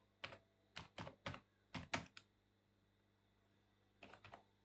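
Faint typing on a computer keyboard: a run of irregular keystrokes, a pause of nearly two seconds, then a few more strokes near the end.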